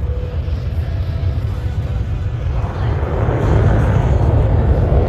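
Jet noise from a CF-18 Hornet's twin General Electric F404 engines during a display flight: a loud deep rumble that grows louder and harsher about three seconds in.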